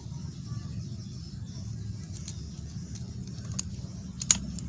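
A few small sharp clicks of a brush cutter's replacement throttle handle and its metal shaft clamp being handled and fitted together, the loudest near the end, over a steady low rumble.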